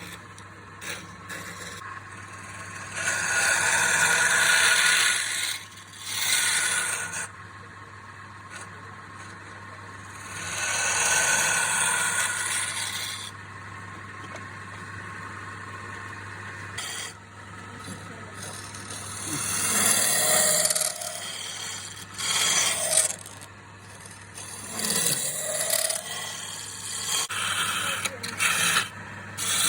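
Wood being turned on a lathe: a tool or abrasive scrapes and rubs against the spinning wood in several bursts of a few seconds each, over a low steady hum.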